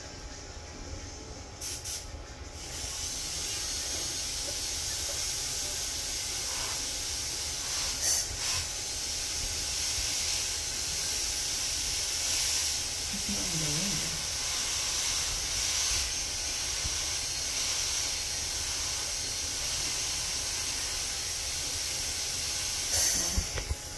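High-speed dental drill running with its water spray while cutting decay out of a deep cavity in a molar, a steady high hiss that comes in about two and a half seconds in. A few short knocks, one about eight seconds in and another near the end.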